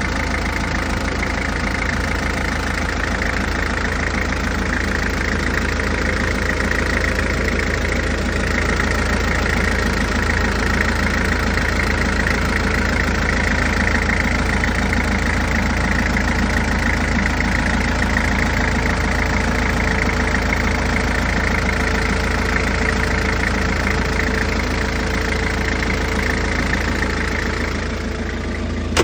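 Komatsu FD30C-16 3-ton diesel forklift engine idling steadily, heard close up at the open engine bay.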